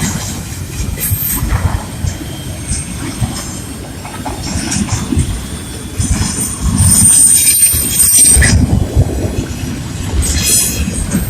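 A train rolling past at close range: a steady rumble of wheels on rail with irregular clacks, getting louder about six seconds in, with a high-pitched wheel squeal for about two seconds in the middle.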